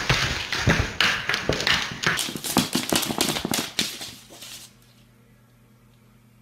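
Green iguana's claws scrabbling and tapping on a hardwood floor as it lunges at and wrestles a plush toy: rapid scratches and taps that stop about three-quarters of the way through.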